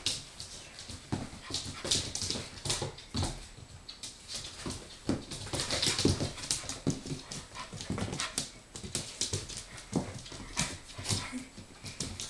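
Siberian husky puppy moving about on a hard floor: a steady run of irregular clicks and taps from its paws and claws.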